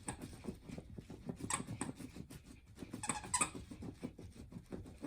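A dog snuffling and moving about at close range, with scattered scratchy clicks.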